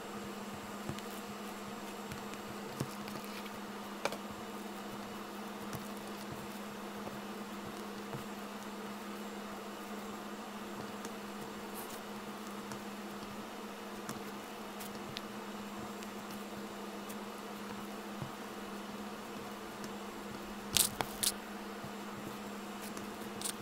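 Fingers kneading and pressing foam-bead slime (floam), giving soft squishing with faint crackling pops from the beads, over a steady low electrical hum. A few sharper clicks come near the end.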